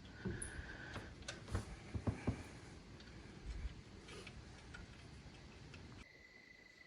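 Faint, scattered light clicks and knocks. About six seconds in they stop and a faint steady high tone comes in.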